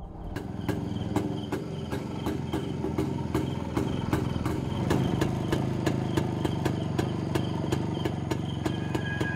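Motorcycle engine idling, with a slow, even beat of about two to three sharp knocks a second over a steady low running note.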